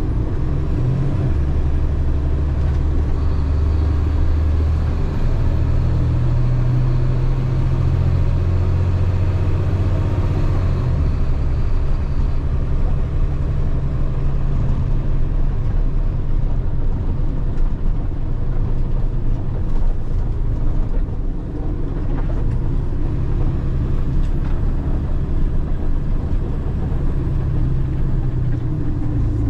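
Delivery truck's engine and road noise heard from inside the cab while driving: a steady low rumble whose pitch steps up and down over the first ten seconds or so, then evens out.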